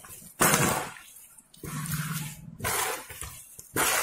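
Hands mixing raw mango pieces with oil and coarse spice masala in a plastic tub: wet squelching and rustling in three separate scoops, about half a second in, near the three-second mark and at the end.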